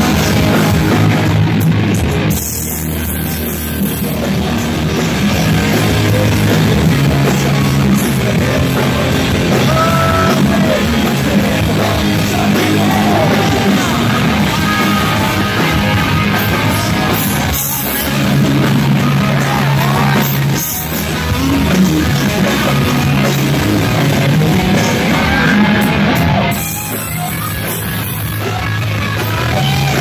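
A live rock band playing loud, with electric guitars and a singer's voice, the sound dipping briefly a few times between phrases.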